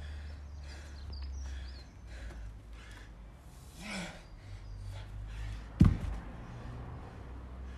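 Heavy, laboured breathing of an athlete catching his breath mid-workout, a breath about every second, one of them a short groan. About six seconds in, a single sharp thud of a hex dumbbell against the rubber floor mat.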